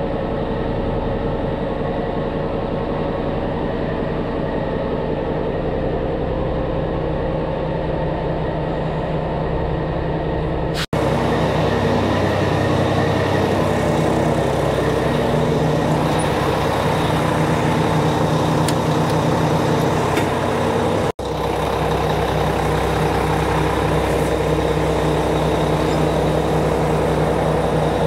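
Mack truck's diesel engine running at low speed as the truck is eased forward, a steady low drone with a regular pulse. The sound drops out abruptly for an instant twice.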